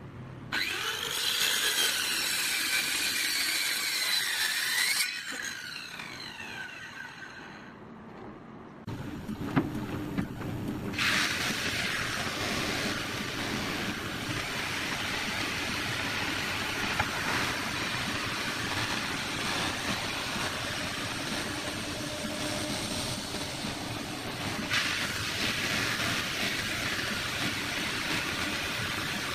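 Handheld circular saw cutting a wooden plank: the blade's whine sags in pitch as it bites and recovers, then winds down once the cut ends. About nine seconds in, a large stationary wood surfacing machine takes over, running steadily as a plank is fed through it.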